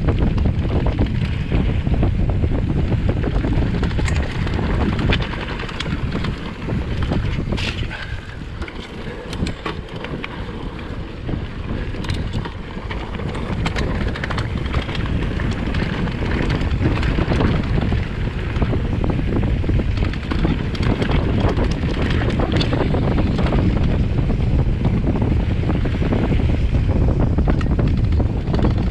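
Mountain bike descending a rough trail: wind rushing over the microphone, tyres rumbling on the ground and frequent sharp rattles and knocks from the bike over bumps. The rush eases for a few seconds about eight seconds in, then picks up again.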